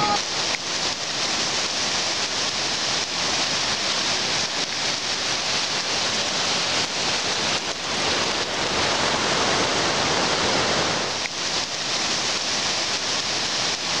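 Waterfall cascades pouring over rocks: a steady rush of falling water.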